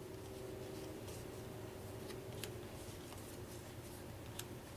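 1965 Bug House game cards being handled and laid down on a wooden table: a few short, soft ticks and slides of card on card, over a faint steady hum.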